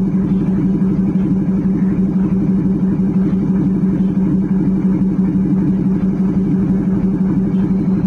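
Locomotive running slowly, heard from inside the cab: a steady low drone with a rapid flutter.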